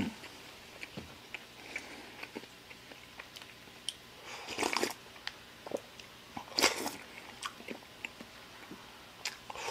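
Close-up eating sounds: chewing fried rice with many small mouth clicks, then miso soup slurped from the bowl, two louder slurps about halfway through and another near the end.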